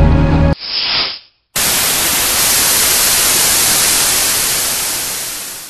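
Loud, even hiss of television static that starts abruptly about a second and a half in and fades out at the end. Before it, music cuts off and a short, duller rush of noise rises and dies away.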